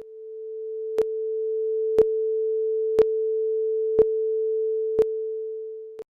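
A steady electronic sine tone at one mid pitch, held for about six seconds, with a sharp tick once every second. It fades in at the start and fades out at the end.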